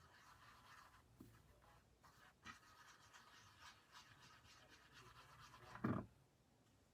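Faint rustling and scratching of gold leaf flakes being wiped and rubbed onto paper card stock, with a short bump about six seconds in.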